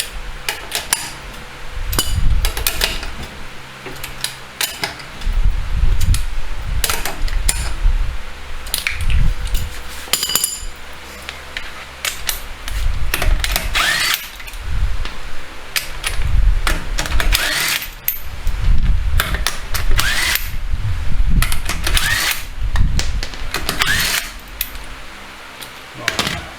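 Power tool running in repeated bursts on a car's wheel nuts, several bursts with a short rising whine, mixed with sharp metallic clicks.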